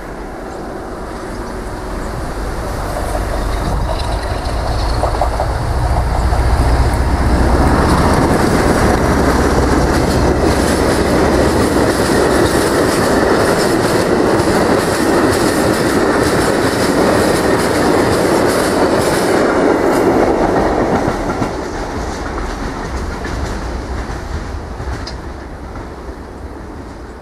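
Class 47 diesel locomotive 47739, with its Sulzer twelve-cylinder engine, approaching and passing, its low engine rumble growing over the first seven seconds or so. A train of empty covered steel wagons then rattles past loudly, with many fine wheel clicks, until about 21 seconds in, and the sound fades as the train moves away.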